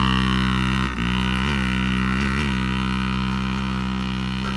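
Dirt bike engine idling steadily close by, with a brief dip about a second in and a few light blips of the throttle.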